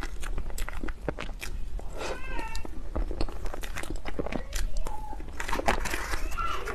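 Close-miked eating sounds of a person chewing cake: a quick run of wet mouth clicks and smacks, with a short pitched vocal sound, like a hum, about two seconds in.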